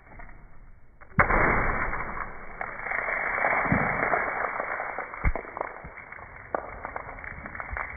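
A water balloon bursts against a brick wall with a sudden pop about a second in. Water then showers down and splashes for several seconds, with scattered taps of drops striking close to the microphone.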